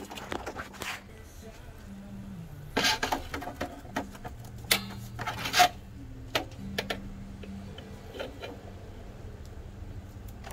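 Scattered sharp clicks and clacks of metal and plastic parts being handled inside an impact printer's chassis, most of them between about three and seven seconds in, over a low steady hum.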